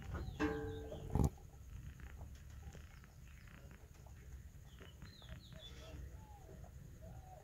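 A short pitched animal call and a sharp knock about a second in, then faint bird chirps and soft cooing calls over low handling rumble, in a wire-mesh rabbit hutch.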